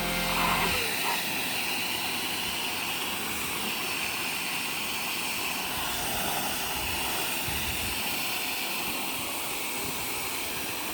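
High-pressure water spray hissing steadily.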